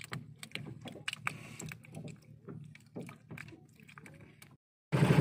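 A small freshly caught fish flopping on a boat's wet deck: a run of irregular light slaps and taps. Near the end the sound cuts out briefly, and a boat engine running with a steady pulsing beat comes in abruptly.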